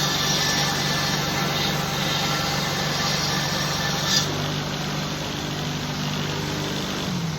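Homemade 2x48-inch belt grinder running steadily, its electric motor humming under the hiss of the abrasive belt, with a brief sharp scrape about four seconds in. Near the end the motor's pitch starts to drop as the grinder winds down.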